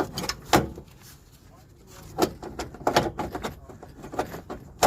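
Several sharp metallic knocks and clanks as a starter motor is wiggled and pushed past the engine parts and brackets around it.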